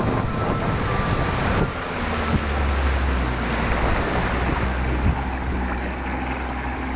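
Bass boat on the water with wind buffeting the microphone and water noise. About two seconds in, a steady low motor hum takes over, with a few brief knocks.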